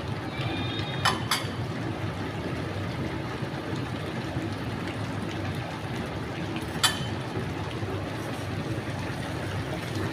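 Steady cooking noise from a pan of chicken liver and gizzard curry on the stove. A metal spoon clinks against the pan twice about a second in and once more near the seven-second mark.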